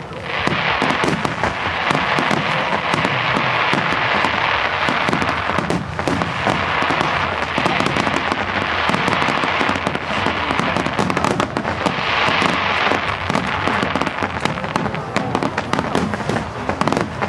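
Aerial fireworks shells bursting in rapid succession: a dense, continuous run of bangs and pops with stretches of thicker crackling.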